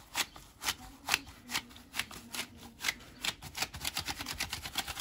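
Rubber-gloved fingers jabbing holes into a bowl of moist bulgur dough for çiğ köfte. It is a string of short jabs, about two a second, that quickens to five or six a second about three seconds in.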